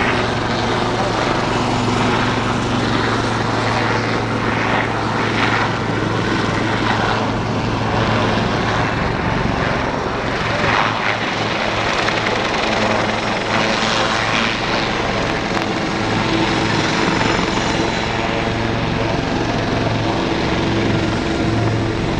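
Royal Navy Lynx helicopters flying a display pass, with the steady noise of their rotors and turbine engines over a constant low hum.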